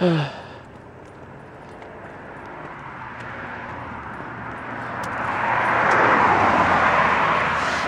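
A car driving past on the street, its tyre and road noise swelling slowly to a peak about six seconds in and then easing off. A brief falling vocal sound comes at the very start.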